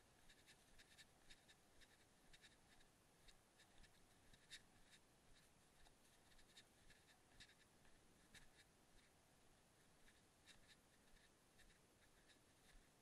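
Near silence, with faint irregular clicks and scratches, a few a second.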